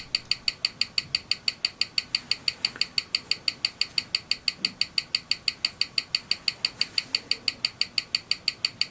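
Seagull ST1901 mechanical chronograph movement ticking steadily at about six beats a second, its balance freshly regulated with the swan-neck regulator.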